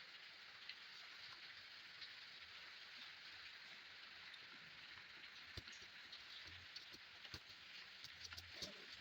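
Faint steady hiss with a few small clicks and taps in the second half: quiet sounds of eating rice and fish curry.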